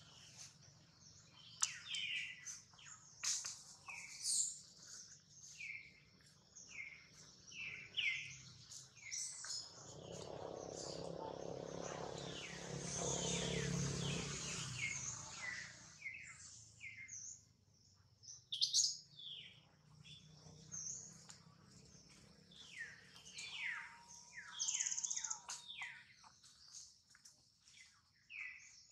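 Birds chirping over and over in short, high, falling calls. A rushing noise swells and fades for several seconds near the middle.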